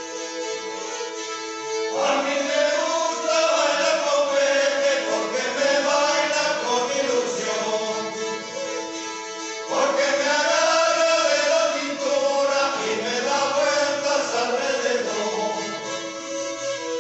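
A group of rabeles, bowed folk fiddles, playing together, with a group of men singing over them from about two seconds in. The singing comes in two long phrases, the second starting near ten seconds in.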